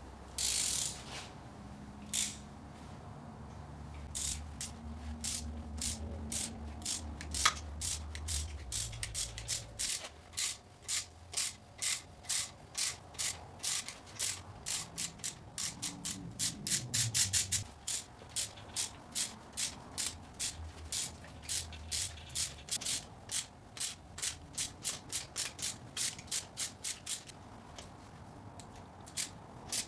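Socket ratchet clicking in quick runs of strokes, a few clicks a second with short pauses between, as 10 mm bolts are backed out of the lower intake manifold of a supercharged GM 3800 V6.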